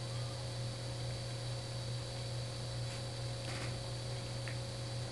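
Steady low electrical hum with a faint hiss under it, the background noise of the recording.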